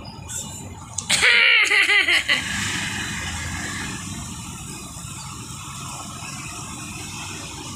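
A young child's brief high-pitched squealing vocal outburst, wavering in pitch, about a second in. It is followed by steady background noise.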